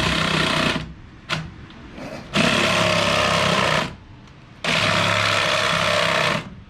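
Cordless power saw cutting a drain pipe, running in three bursts that each stop abruptly, with a click in the first pause. The tool keeps cutting out, which is put down to a flat battery.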